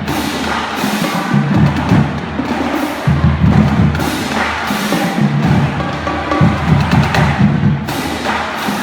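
Loud music with a heavy, pulsing bass beat and percussion.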